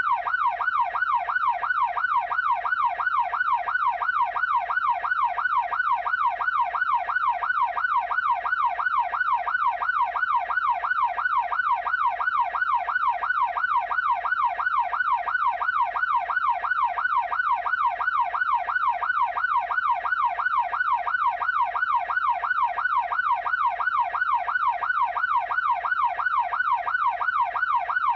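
Electronic police siren on its fast yelp setting, the tone sweeping rapidly up and down about three times a second without a break.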